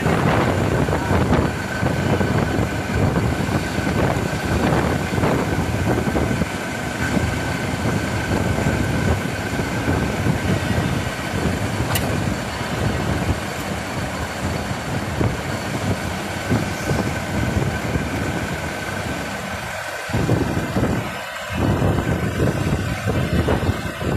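Radial drilling machine running while drilling a long steel pipe: a steady mechanical drone with a faint high whine. There is a sharp click about twelve seconds in.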